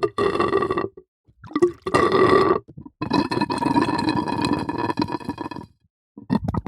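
Water gurgling in bursts with a hollow, bubbly, burp-like tone: a short gurgle, a second one about a second and a half in, then a longer gurgle of nearly three seconds, and another starting at the very end.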